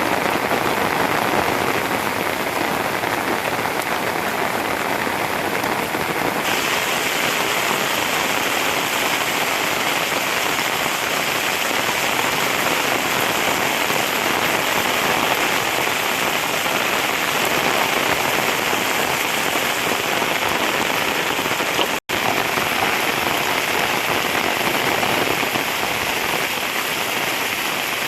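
Steady rain falling, a dense, even hiss of drops, with a brief cut-out about 22 seconds in.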